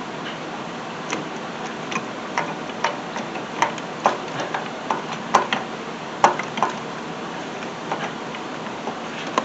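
Irregular light clicks and knocks, a couple a second, of tools and hands working a thermostat housing loose in an engine bay, over a steady background hiss.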